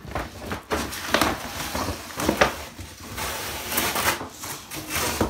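Brown paper wrapping being torn and pulled off a cardboard box, a run of loud rips and crackles, with the box shifted about as the paper comes away.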